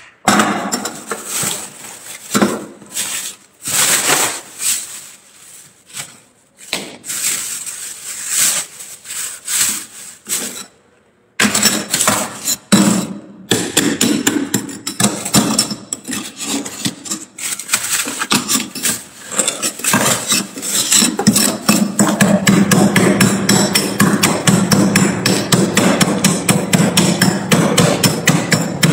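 Thick freezer frost being handled and scraped: for about the first ten seconds, irregular crunching as loose frost is pressed into a plastic bag, then a metal spatula scraping the frost off the freezer walls and shelves in a fast, continuous run of scratchy strokes.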